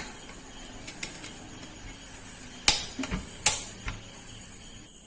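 Pressure cooker being closed and handled: a few light clicks, then two loud sharp knocks about a second apart, near the middle.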